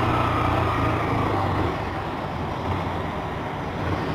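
Honda 160 cc single-cylinder motorcycle engine running as the bike rolls off slowly, a steady low hum that eases a little after about a second and a half.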